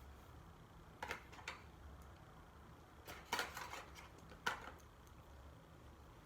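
Small clicks and taps of iPhone parts and a repair tool being handled during a screen replacement: two light clicks about a second in, a quick cluster around three seconds in, and one sharp click a little after four seconds.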